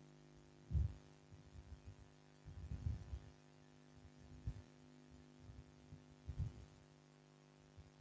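Steady electrical mains hum, with a few dull low thumps at irregular intervals over the first seven seconds, the loudest about a second in.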